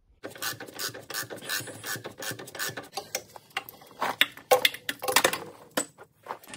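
Ratchet wrench clicking in quick, irregular runs as it tightens the bottom nuts of a new engine mount.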